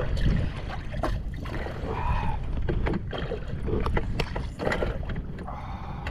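Low, steady rush of wind and choppy water against a small boat's hull, with a few short knocks scattered through.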